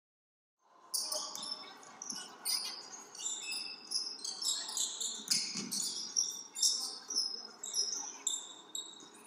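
Basketball being played on a gym's hardwood court: sneakers squeaking, the ball bouncing about twice a second, and a murmur of players' and spectators' voices. It starts suddenly after a brief silence.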